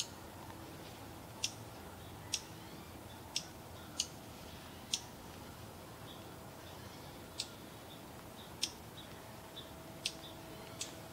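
Raindrops dripping onto holly leaves: about ten sharp, irregularly spaced ticks over a quiet background.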